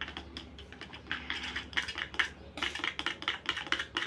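A plastic toy spoon stirring and tapping inside a small plastic toy pot: rapid, irregular light clicks, several a second, getting busier after about two and a half seconds.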